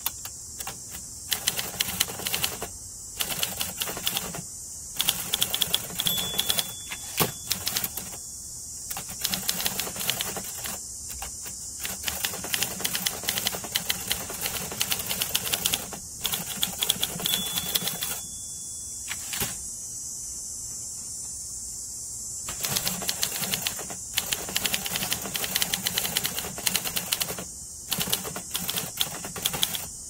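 1960 Olympia SM-4 manual typewriter being typed on in quick runs of keystrokes, with a pause of a few seconds past the middle. Its margin bell gives a short ring twice.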